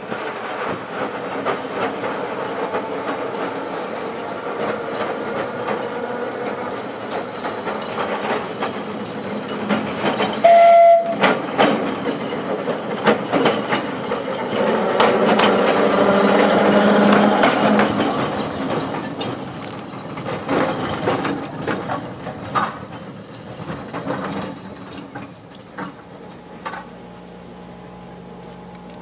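Electric double-deck tram running along its track and passing close by: motor whine and wheels on the rails, loudest as it goes past, with a short, loud pitched warning note about ten seconds in. The sound falls away near the end.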